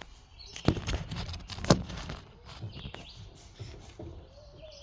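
Small one-pound propane cylinders being handled: a few knocks and clinks, the loudest about one and three-quarter seconds in, over faint bird chirps.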